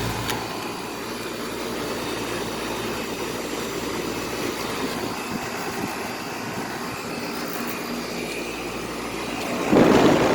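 Tempstar central air conditioner's outdoor condensing unit running steadily, compressor and condenser fan, just after cleaning of its coils; the compressor runs fairly quietly. Near the end a loud rush of noise lasts about a second.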